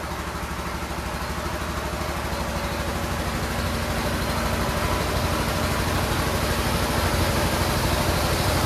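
An engine running steadily with a fast, even throb, under the rushing splash of liquid rubber latex pouring from a pipe through a mesh sieve into a concrete tank. The sound grows gradually louder.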